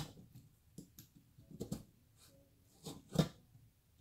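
A knife blade scraping and cutting at a firework rocket's paper tube in a few short, irregular strokes, the loudest about three seconds in.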